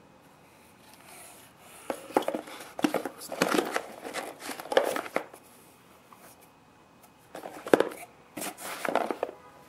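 Handling noise from tube-tester adapters with their cables being set back into a small cardboard box: rustling of cardboard and cable, with light clicks and knocks. It comes in two spells with a quiet pause between them, and there is one sharper knock near the end.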